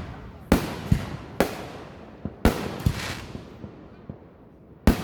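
Fireworks going off: a string of about six sharp bangs at uneven intervals, each dying away in a rumbling echo, with a few smaller pops between them.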